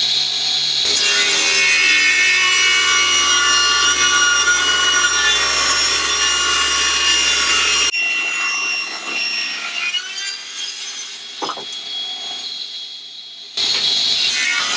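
Benchtop table saw ripping a pale softwood board, the circular blade whining loudly as it cuts. The sound drops suddenly about eight seconds in and fades, then comes back at full level near the end.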